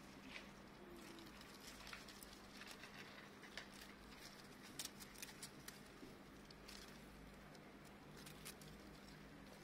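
Near silence with faint, scattered ticks and rustles of dry grass and plant stems as a grass stalk is waved about, most of them bunched about halfway through, over a faint steady low hum.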